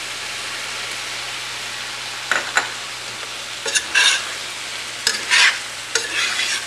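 Eggplant, potato and tomato pieces sizzling in a stainless steel pan. From about two seconds in, a metal spoon stirs them, with four scraping strokes.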